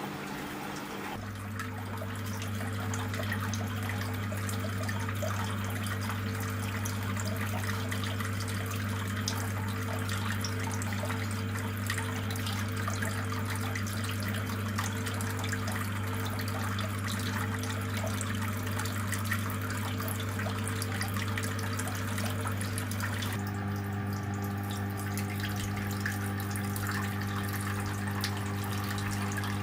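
Water trickling and splashing from a small tabletop fountain, with its small water pump humming steadily from about a second in.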